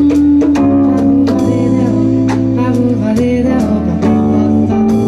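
A live jazz band playing electric bass, keyboard and drum kit. Held bass notes change every second or two under a long held melody note, with regular cymbal and drum hits.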